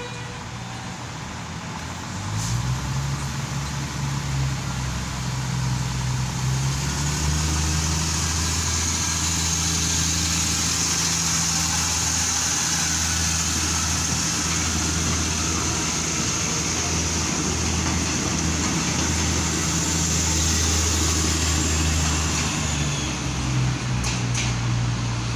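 Diesel engines of a PNR diesel multiple unit running under load as the train pulls out and passes close. It is a steady low drone with a high hiss over it. The engine note steps up a couple of seconds in and eases off near the end.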